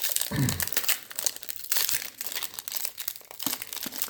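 Foil trading-card pack wrappers crinkling and rustling as they are handled, with a steady run of crackling.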